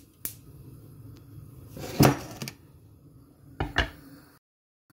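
Knocks and clunks of a stainless steel pot of potatoes in water being handled on the hob: a click near the start, a louder clunk about two seconds in, and another about a second and a half later.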